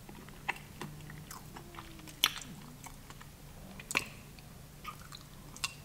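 A person chewing a mouthful of biscuit close to the microphone, with a few sharp mouth clicks scattered through, the loudest about two seconds in and another about four seconds in.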